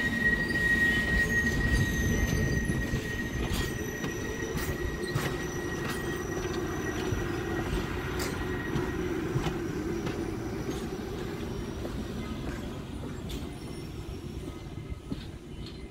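A train rolling past with a steady high-pitched wheel squeal that fades out about nine seconds in. The low rumble of the train slowly dies away, with a few scattered clicks.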